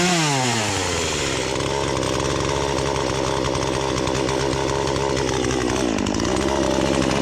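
Poulan Pro two-stroke chainsaw running at high revs. It settles from a rev into a steady note, dips briefly about six seconds in and picks back up. Its low and high carburetor screws have been adjusted so it keeps running instead of stalling out.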